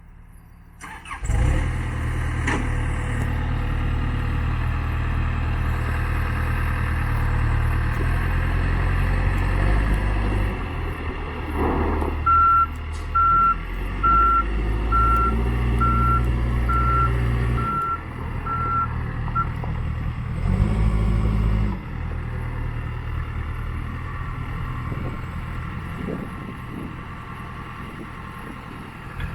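Case 580N backhoe loader's diesel engine starting about a second in and running steadily. Midway its reversing alarm beeps about once a second for several seconds while the engine works harder in bursts, then it settles back to idle.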